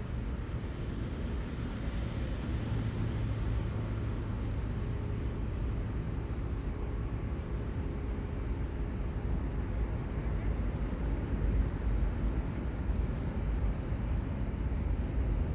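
Steady low rumble of seaside outdoor ambience, with no distinct events.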